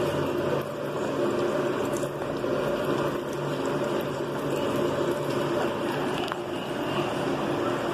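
Automatic transmission fluid draining in a thin stream from the open Ford FNR5 transmission case, pouring and splashing steadily into a drain pan, with a steady low hum underneath.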